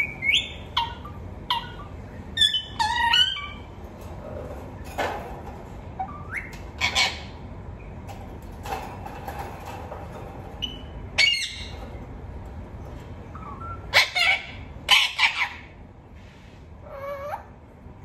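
Rose-ringed parakeet calling: a string of short squawks and chirps with pauses between them, the loudest few coming about three-quarters of the way through.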